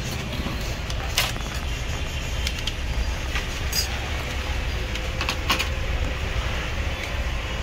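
Steady low background rumble, with a few sharp clicks and knocks from hands working loose parts inside a metal desktop PC case, about one, four and five and a half seconds in.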